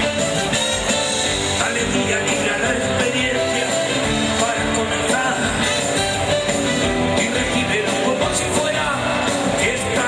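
Live band music with a steady beat, acoustic guitar among the instruments.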